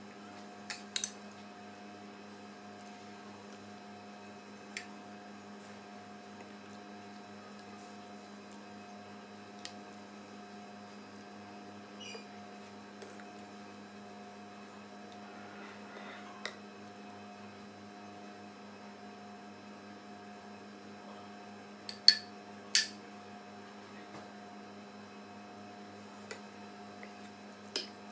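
Metal ladle clinking now and then against a stainless steel pot and a ceramic serving bowl as soup is ladled out, with two sharp, louder clinks in quick succession late on. A steady electrical hum runs underneath.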